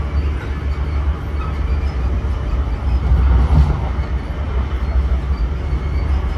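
Train running with a steady low rumble.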